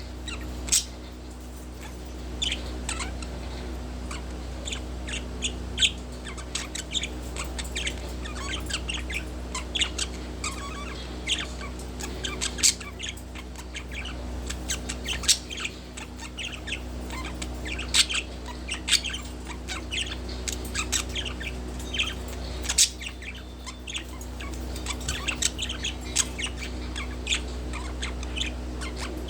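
Budgerigar chirping and chattering: a running string of short, high chirps with brief pauses, over a low steady hum.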